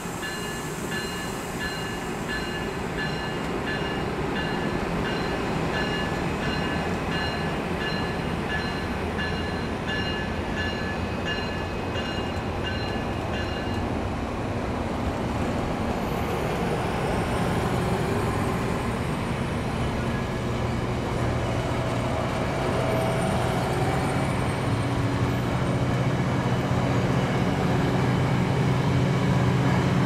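Passenger trains rolling past on the rails. For the first half a high ringing tone pulses about once a second over the wheel rumble. Near the end a VRE diesel locomotive's engine grows louder as it comes past.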